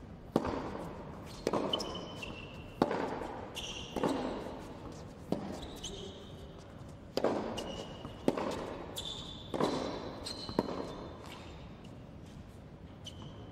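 Tennis rally on an indoor hard court: about nine sharp racket strikes and ball bounces, roughly one every second or so, each echoing in the hall, stopping a couple of seconds before the end. Short high squeaks of court shoes come between the hits.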